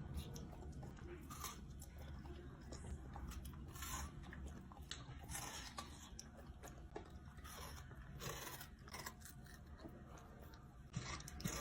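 Dachshund chewing and crunching food, with irregular crunches throughout.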